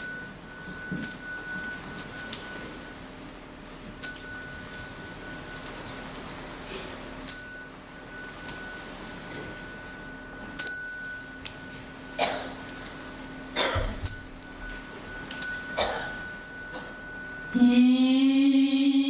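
A small ritual bell is struck about ten times at uneven intervals, each strike ringing on a high, clear tone, while the assembly bows with a few soft rustling swells. Near the end a loud, sustained chant begins.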